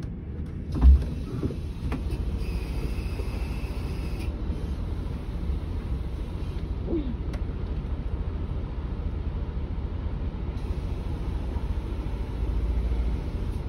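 Setra S 431 DT double-decker coach's diesel engine idling at standstill: a steady low rumble, with a brief low thump about a second in and a little louder near the end.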